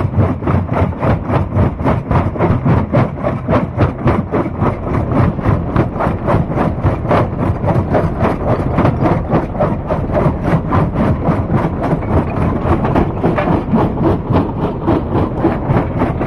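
Large stone crushing machine running, a steady mechanical drone beating with a rapid, even pulse several times a second.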